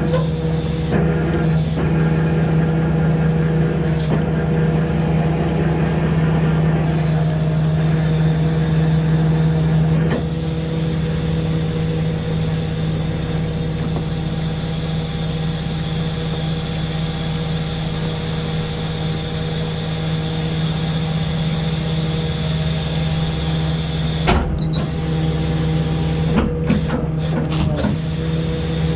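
Tow truck engine running steadily, powering the wrecker's hydraulic winch; its drone eases slightly about ten seconds in. A few sharp clicks and knocks come near the end.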